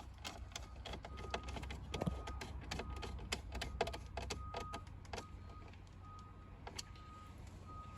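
Tool clicking in quick, irregular strokes as a Torx screw is tightened down, thinning out about five seconds in. A soft beep repeats at a steady pace underneath.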